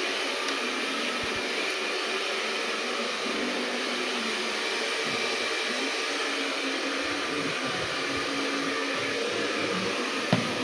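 Two Daikin split air conditioners running with a steady rush of air and a low hum. A single sharp click near the end.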